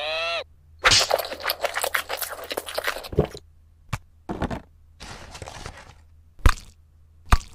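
A short squeaky cartoon-voice glide at the very start, then about two seconds of dense crackling and crunching, followed by four separate knocks and thuds as a paper food box is handled on a wooden table.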